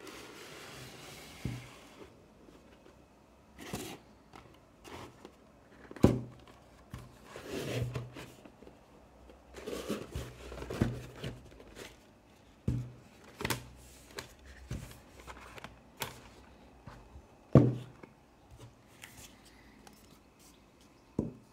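Handling of a Blu-ray box set's cardboard fold-out with clear plastic disc trays: a rustling slide, then scattered clicks, taps and rustles as the panels are folded shut and a booklet is taken out, with a few sharper knocks of card and plastic, the loudest about six seconds in and near the end.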